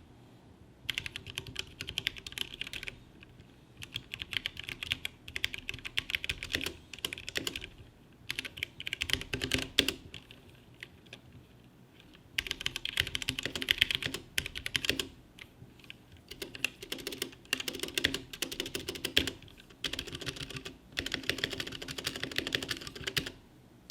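Typing on a custom mechanical keyboard built on a Drop ALT case and PCB with Drop Halo tactile 65 g switches and Artifact Bloom Red Velvet keycaps. The keys clack in fast bursts of a few seconds each, with short pauses between them.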